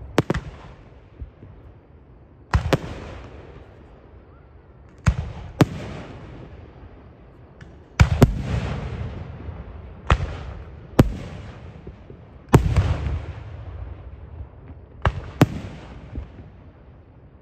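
Aerial fireworks shells bursting overhead: about ten sharp bangs, one every second or two, some in quick pairs, each trailing off in a low rolling rumble.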